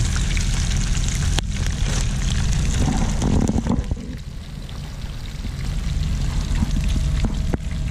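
Pieces of carp frying in a pan of plenty of hot oil: a steady sizzle with a few sharp pops, softening for a couple of seconds about halfway through.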